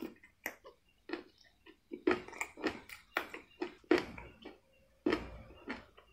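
Person chewing crunchy food in a fast, irregular run of crisp crunches, about three a second.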